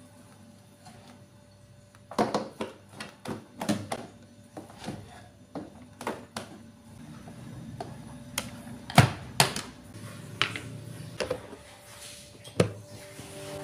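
Plastic rice paddle scooping cooked rice from a rice cooker's metal inner pot and tapping it into a plastic lunch box: a run of scrapes and light knocks. A sharper clack near the end comes as the box's plastic lid is handled.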